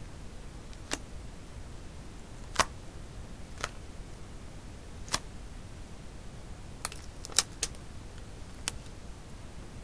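Scattered sharp taps and clicks from long fingernails and paper pieces being pressed onto a scrapbook page, about eight in all. The loudest comes about two and a half seconds in, and a quick cluster of three comes around seven seconds.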